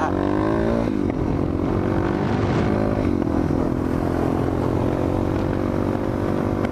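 Suzuki DR-Z400SM supermoto's single-cylinder four-stroke engine under way on the road. The engine note drops in pitch about a second in, then holds steady.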